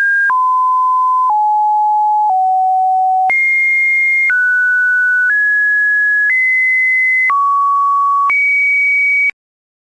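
A loud run of about ten pure electronic beep tones, each held for about a second and joined without gaps. The pitch jumps between steps, mostly stepping down at first, then alternating high and middle. The tones cut off abruptly near the end, leaving silence.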